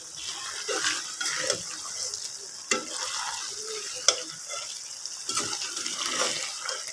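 Potato and radish-pod curry sizzling and bubbling in a metal pan as its remaining water cooks off, with a metal spoon stirring and scraping through it and knocking against the pan three times.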